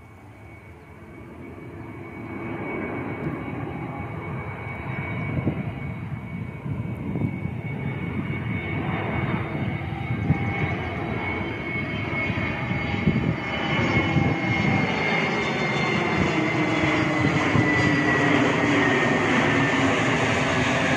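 Jet engines of a Vistara Airbus A320neo-family airliner on landing approach, growing steadily louder as it comes closer. A high engine whine runs through the noise and slides a little lower in pitch near the end as the jet passes.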